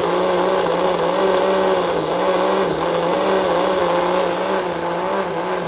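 Countertop blender running steadily at high speed, puréeing cooked corn broth with onion and chile; its motor gives a loud, even hum whose pitch wavers only slightly.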